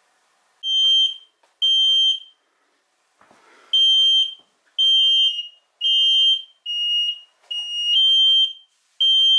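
Two carbon monoxide detectors sounding their alarms with shrill, half-second beeps at slightly different pitches: two beeps, a short pause, then about one beep a second. They have been set off by carbon monoxide trapped in the sealed test box, at about 350 ppm.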